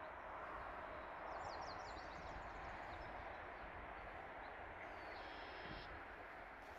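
River water flowing steadily, with birds calling over it: a quick run of short high chirps about a second in and a brief high held note a little after five seconds.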